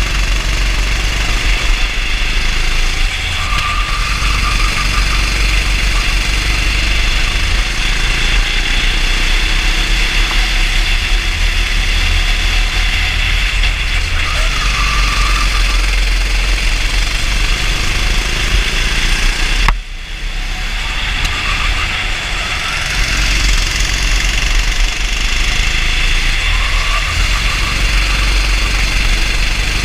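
Racing kart engine running at speed, heard from onboard, over a heavy low rumble. About two-thirds of the way through the sound drops off suddenly, then builds back up over a few seconds.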